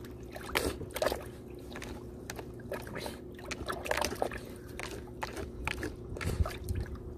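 Beagle–Chihuahua mix dog digging with its paws and nose in water in a plastic bin, making irregular splashes and sloshes, several a second at times.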